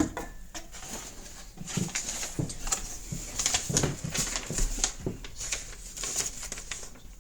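Handling of AirPods Pro 2 cardboard and paper packaging: an irregular run of small clicks, crinkles and light knocks as the box and its contents are turned over and searched.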